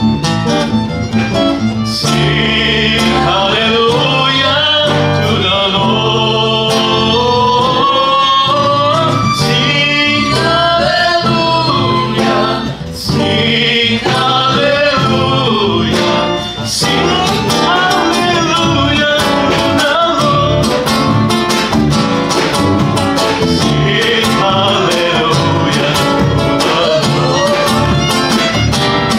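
Live worship song: a strummed acoustic guitar and a violin, with a woman singing into a microphone.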